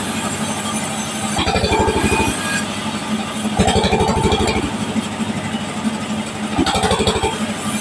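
Band sawmill running while a timber plank is fed past the blade, over a steady machine hum. The motor's rapid pulsing beat swells in spells of about a second, three times.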